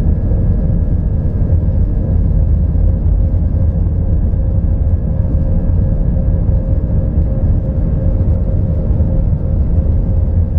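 Airbus A320's jet engines at takeoff thrust heard from inside the cabin during the takeoff roll: a loud, steady rumble of the engines and the wheels on the runway, with a faint steady tone over it.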